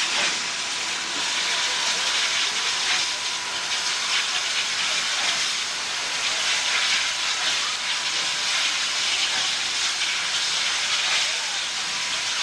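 Union Pacific 8444, a 4-8-4 FEF-3 steam locomotive, hissing steam steadily at close range.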